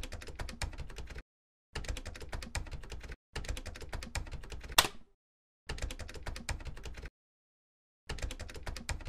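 Rapid keyboard typing sound effect in five short runs of fast clicks with brief pauses between them, one sharper, louder click near the end of the third run.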